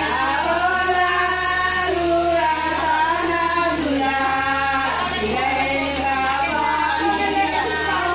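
High female voices singing a melodic song without pause.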